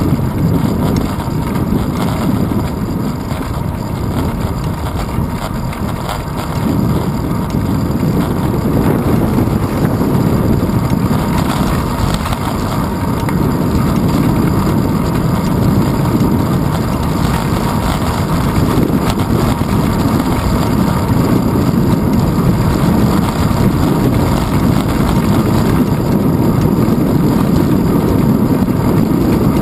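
Wind buffeting and road rumble picked up by a handlebar-mounted GoPro Hero 2 on a moving bicycle: a steady low rumble.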